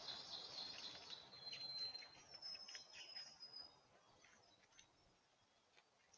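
Faint birdsong in the woods: high, thin songs with two long held whistled notes in the first half, fading about four seconds in, with a few soft clicks.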